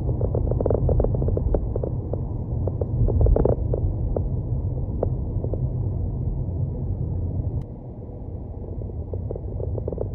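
Road and engine rumble of a moving car heard from inside, with scattered light knocks and a louder bump about three seconds in; the rumble eases just before eight seconds.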